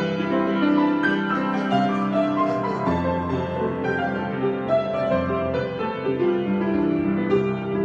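Piano improvisation: chords and overlapping notes ringing on, with new notes entering every fraction of a second.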